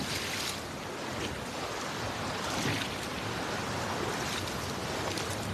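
Fast-flowing shallow stream rushing over rocks: a steady wash of running water.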